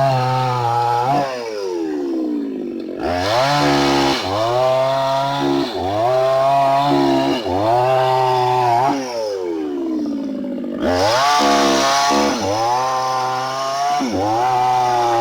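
Hyundai mini chainsaw cutting rubber tree wood. The motor's pitch sags and recovers about every one and a half seconds as the chain bites into the cut and eases off, with a steady hiss of cutting over it.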